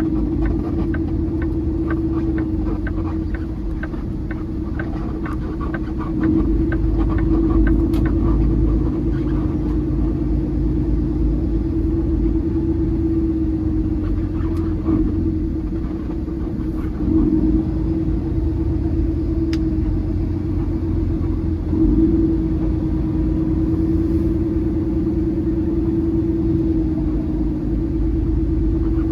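Peterbilt semi truck's diesel engine running at low speed, a steady low rumble and drone with brief swells in level.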